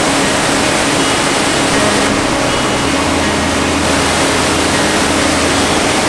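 Waterfall crashing down, a loud steady roar of falling water.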